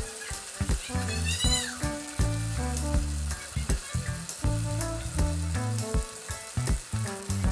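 Macaroni deep-frying in hot oil, a steady sizzle with frequent small crackles. Background music with a changing bass line plays along.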